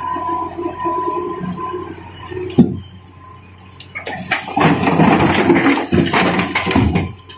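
Water splashing and rushing, loudest in the second half, after a single sharp knock about two and a half seconds in.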